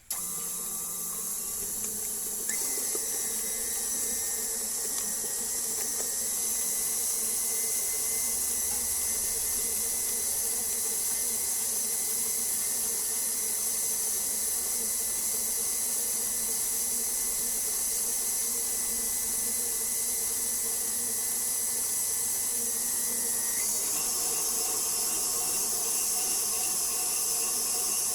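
Electric mixer motor running steadily while it mixes a sticky bread dough after an egg has been added, with a high whine that comes in a couple of seconds in and fades out near the end.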